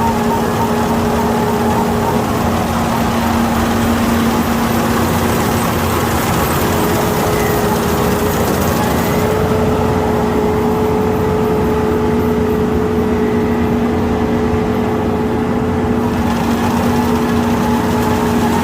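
Kukje KC5130 combine harvester running steadily during rice harvesting, a constant engine drone with an even hum.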